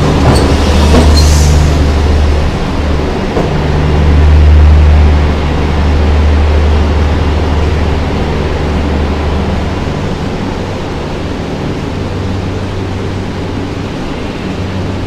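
Talgo 'Strizh' train rolling through a Talgo gauge changer as its last car passes overhead, with metallic clanks in the first second or two, then a low rumble that fades over about ten seconds into a steady, even noise.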